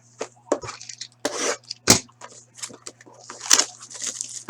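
Trading cards and their packaging being handled: a run of irregular rustles, crinkles and sharp clicks, with louder crackly bursts about a second in and near three and a half seconds.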